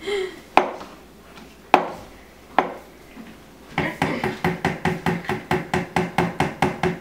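A metal spoon knocking against a container while scooping yogurt. It gives three separate clinks, then from about four seconds in a quick run of about sixteen taps, some five a second, each with a short ring.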